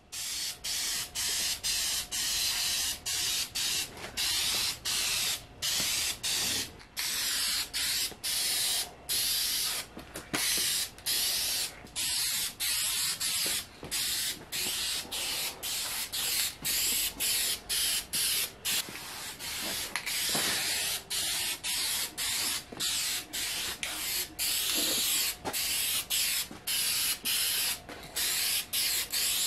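Aerosol can of white spray paint hissing in a long run of short passes, the spray cutting off briefly again and again between strokes as fresh paint goes onto primed plastic parts.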